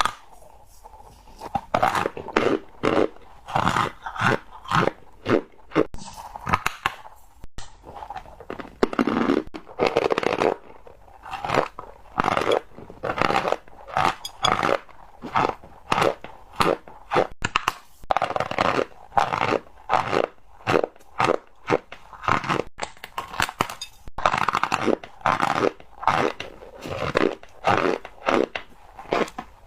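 Cornstarch being bitten and chewed close to the microphone: a steady run of crunches, one or two a second, with brief pauses between them.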